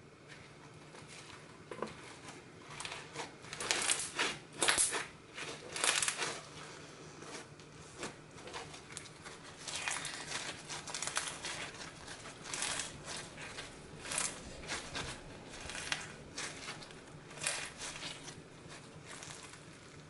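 Clear slime filled with polystyrene foam beads being squeezed and stretched by hand, the beads crunching and crackling in quick irregular bursts, loudest a few seconds in.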